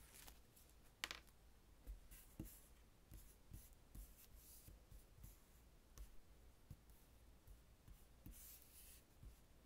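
Faint crinkling and rustling of thin clear plastic sticker cut-outs of leaves and butterflies as they are handled and laid out on paper, with one sharp click about a second in and soft taps of long acrylic nails on the paper throughout.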